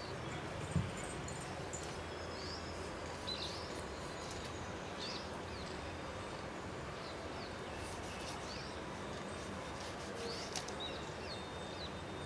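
Small birds chirping in short scattered calls over a steady outdoor background hiss, with one low thump about a second in.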